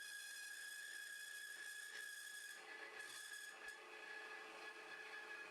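A wood band saw converted for metal cutting, slowed by a 16-tooth motor pulley and fitted with a 14 TPI blade, runs with a steady whine as it saws through 6061 aluminum bar stock.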